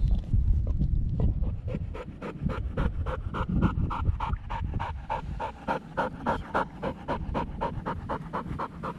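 A chocolate Labrador Retriever panting hard, in quick even breaths several times a second, from about two seconds in. Before that, a louder low rumbling noise.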